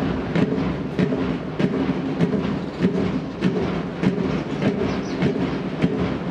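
Band music with a steady drumbeat, about three beats every two seconds, starting suddenly and playing loudly throughout.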